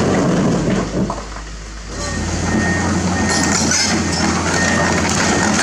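Rocks rumbling as a dump truck tips its load, easing off after about a second. Then a Komatsu PC210 excavator's diesel engine runs steadily, with a high alarm beep repeating over it.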